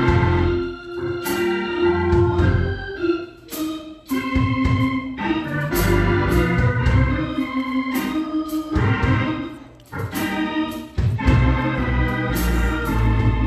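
Organ playing held chords over a heavy bass line, with frequent sharp percussive hits.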